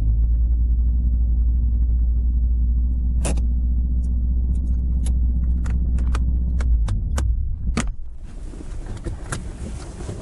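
The AE86's 5-valve 4A-GE engine on Weber carburettors running at a steady low idle-like rumble, with a string of sharp clicks from about three seconds in. The engine sound drops away about eight seconds in, leaving an even hiss.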